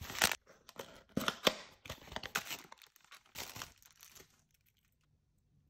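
Bubble wrap and plastic packaging crinkling and tearing as it is unwrapped by hand, in irregular bursts that stop about four seconds in.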